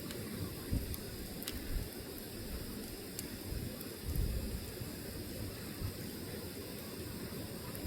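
Log fire burning, a steady hiss and low rumble with a couple of sharp crackling pops.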